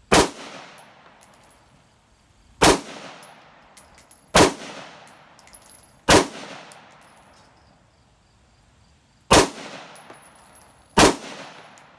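AR-15-style rifle firing six single shots, spaced one to three seconds apart with the longest gap past the middle, each shot echoing as it dies away. Ejected brass casings clink on concrete after the shots.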